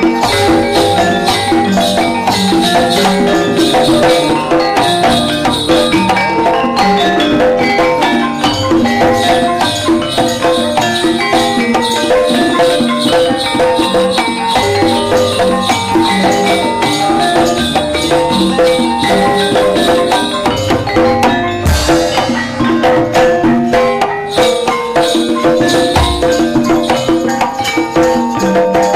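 Javanese gamelan playing dance accompaniment: metallophones ringing out a dense, steady pattern of struck notes over a drum.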